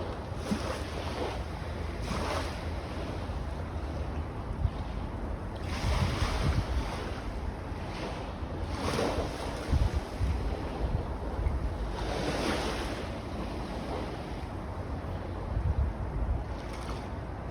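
Small sea waves lapping and washing up the beach, a swell of hiss every two to four seconds. Wind buffets the microphone with a steady low rumble underneath.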